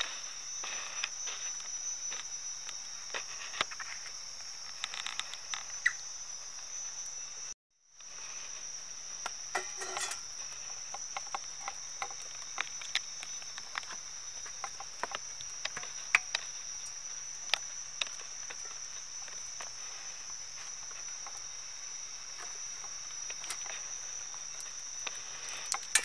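Crickets chirring in a steady high-pitched drone, with scattered sharp ticks and clicks over it. The drone cuts out for a moment about a third of the way in.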